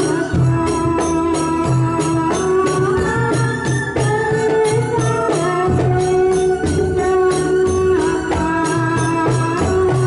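Live Ndolalak ensemble music: an electronic keyboard plays a held, stepping melody over a steady beat of kendang hand drums, with a jingling tambourine on top.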